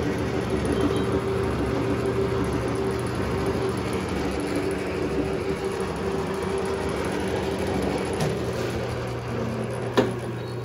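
Logan metal lathe by Powermatic running, its motor and spindle giving a steady hum as the chuck turns. A sharp click comes near the end as a headstock lever is moved, and the running sound eases slightly.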